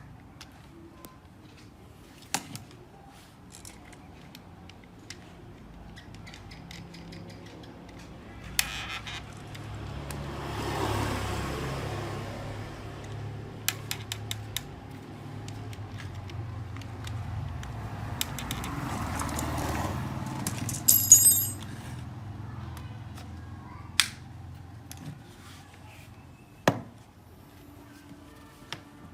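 Metal parts and hand tools clicking, knocking and clinking as a concrete drill is put together by hand, with a brief clatter of small metal parts about two-thirds of the way through.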